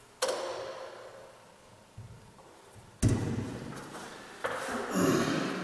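Sheet-metal mounting bracket knocking and clattering against a drywall ceiling as it is pushed into place. There is a sharp clatter about a quarter second in, a heavy thud about three seconds in, and more knocks near the end.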